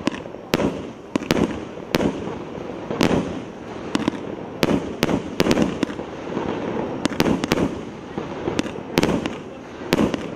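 An 84-shot, 1–2 inch calibre fireworks cake (Legenda 'Great Wall' A7707) firing: a quick, uneven run of sharp bangs, about two a second, as the shots launch and burst, over a steady crackle.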